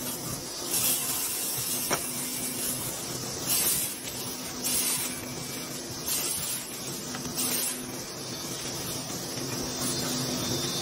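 Table saw running steadily, with repeated short hissing bursts, about one every second and a half, as the blade cuts a series of kerfs through a stack of wood blocks.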